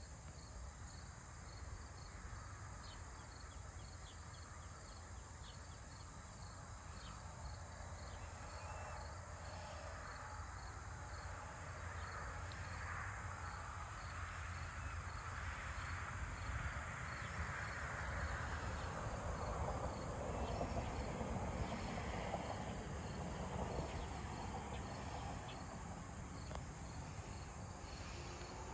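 Late-summer crickets chirping in an even, steady rhythm, with a continuous high insect drone above them and a low rumble underneath. In the middle a broad rushing sound builds up, becomes the loudest thing, and fades away again.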